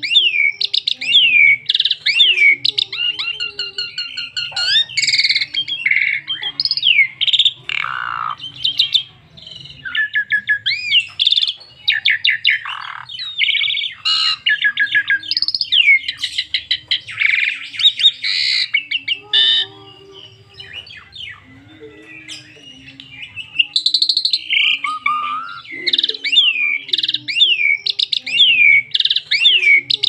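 Asian pied myna (jalak suren) singing a long, varied song of whistles, sweeping chirps and rapid rattling trills, with a quieter lull about two-thirds of the way through.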